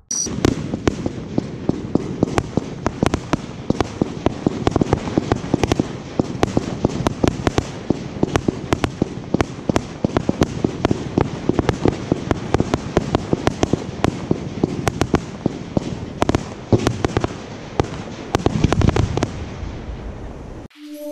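Laurasse V firework compact (cake) firing a continuous volley: many sharp pops a second over a steady hiss of launching shots. It stops shortly before the end.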